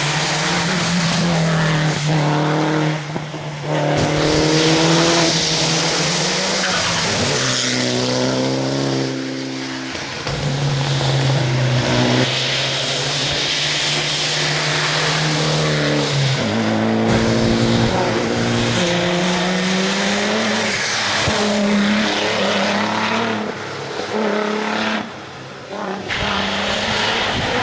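Rally cars, a Subaru Impreza and a Mitsubishi Lancer Evolution among them, driving one after another through a wet hairpin, engines revving up and dropping back through gear changes, with the hiss of tyres throwing spray off the wet road.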